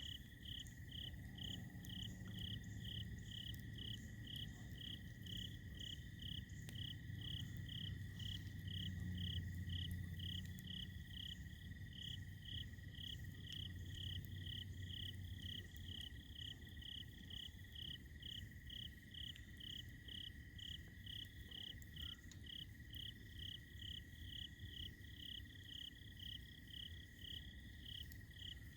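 Night insects calling: a high chirp repeated evenly, about two a second, over a steady high trill, typical of crickets in the fall. A low rumble runs under it for the first half and then fades.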